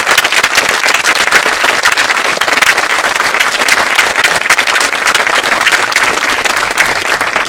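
Audience applauding: many people clapping at once, steady and then dying away near the end.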